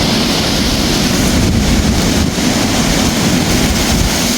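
Hurricane wind with rain: a loud, steady rush of wind and rain hiss, with wind buffeting the phone's microphone in a jagged low rumble.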